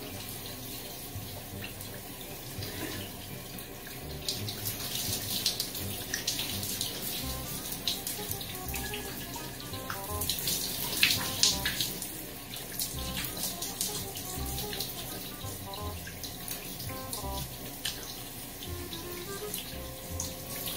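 Shower spray running steadily and splashing over a person's head and face.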